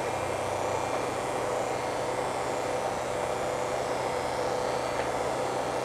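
Steady buzzing and humming from a T gauge model railway's PCB linear motor drive as the magnet-propelled trains are stepped along. The train and coil track together act as an electric motor with many loose, rattling parts.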